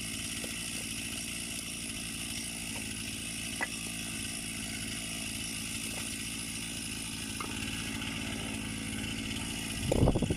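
Two-stroke chainsaw idling steadily on the ground, with a few faint knocks of wood being handled; near the end comes a short, louder burst of noise.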